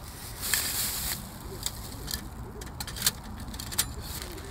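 Plastic bag crinkling, then sharp clicks as lumps of charcoal are dropped one by one into a small metal fire grill.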